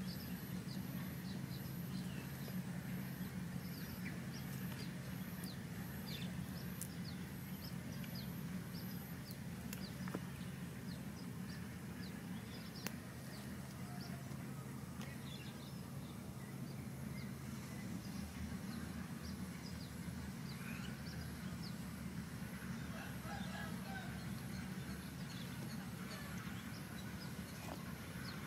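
Outdoor ambience in an open grassy field: a steady low hum with many faint chirps and calls of birds and insects, and a light click now and then.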